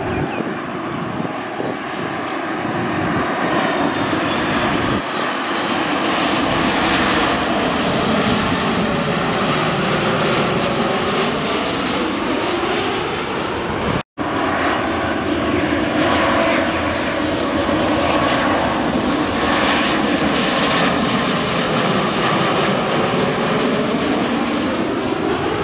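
Boeing 737 MAX 8 on final approach passing overhead, its CFM LEAP-1B turbofans at low approach power, the engine noise swelling as it nears with a sweeping, phasing tone as it goes by. About 14 seconds in it cuts abruptly to a Sukhoi Superjet 100 on approach, its PowerJet SaM146 engines making the same sweeping pass.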